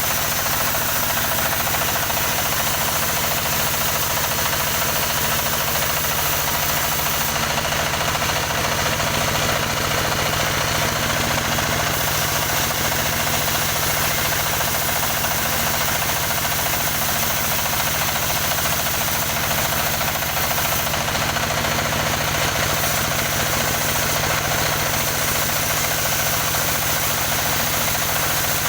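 An engine powering a wood saw, running steadily at an even speed with a fast regular beat.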